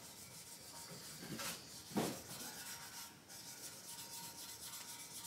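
Faint, steady rubbing of a hand sanding block back and forth over a primed car bumper, wet-sanding with 600-grit paper. A short thump about two seconds in.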